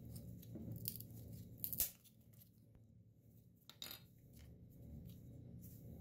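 Small plastic and metal clicks and snaps as a plastic pencil sharpener is pried apart and its metal blade body pulled free of the housing. The sharpest snap comes a little under two seconds in, and a smaller pair of clicks near four seconds.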